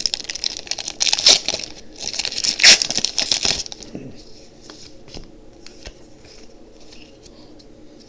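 Foil booster-pack wrapper crinkling and tearing open, loud for about the first three and a half seconds, then quieter rustling with small ticks as the pack is handled.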